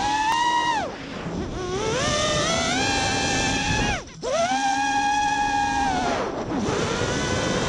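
Four Emax RS2205 2300kv brushless motors on a 5-inch FPV quadcopter, spinning Racekraft 3D props, whining as the throttle is worked. The pitch falls about a second in and climbs again. It cuts out almost completely about four seconds in, then comes back up to a steady high whine.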